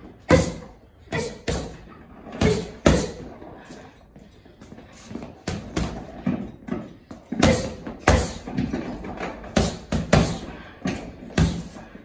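Gloved punches thudding into a leather heavy bag in irregular combinations. The hits thin out and soften in the middle, then come as a fast flurry in the last few seconds.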